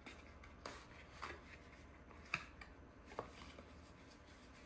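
Faint scattered clicks and rustles of a small cardboard product box being pried open by hand, about five sharp ticks spread over a few seconds.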